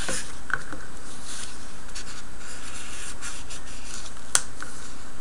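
Paper rubbing and scraping as hands press and smooth a glued cardstock panel flat, with a sharp tap about four seconds in.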